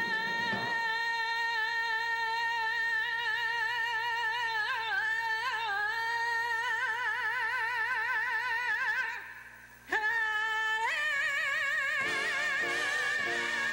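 A singer holds the long final note of a sentimental ballad, with vibrato widening about halfway through. After a short breath about nine seconds in, the voice swoops up into a second, higher held note, and the band comes in underneath near the end.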